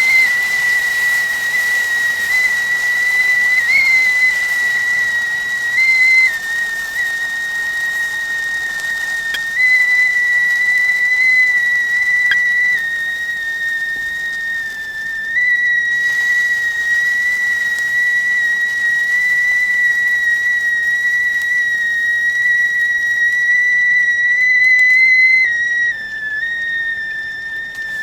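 Whistling kettle (tea pot) sounding one steady, shrill high note over a hiss of steam, the whistle of water at the boil. Its pitch and loudness shift a little in small steps every few seconds.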